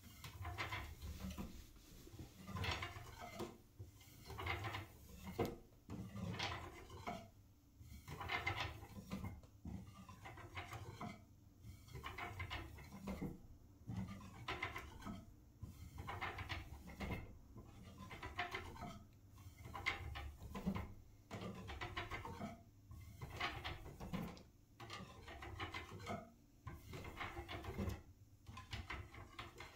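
Fingers tapping on the wooden spindles and bow of a Windsor-style chair in quick clusters of taps, a new cluster about every second or so with short pauses between.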